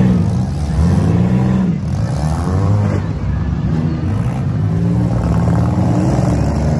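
Several demolition derby cars' engines revving hard and easing off again and again, their pitch rising and falling about once a second and overlapping.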